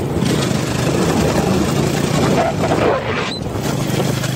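Motorcycle engine running at a steady speed while riding, with wind rushing over the microphone.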